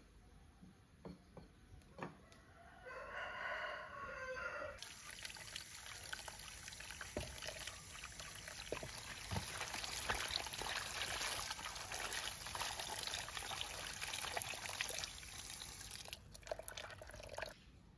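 A few knife taps on a wooden chopping board, then a rooster crowing for about two seconds. Then water pours from a hose into a plastic basin of water while carrots and bok choy are rubbed clean by hand; the water stops shortly before the end.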